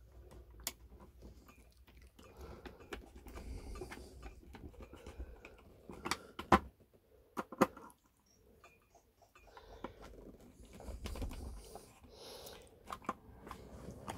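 Small screwdriver working the screw terminals of a solar charge controller while cables are handled: scattered sharp clicks and small knocks of plastic and metal, loudest as two quick pairs about six and seven and a half seconds in, over a low rustle of handling.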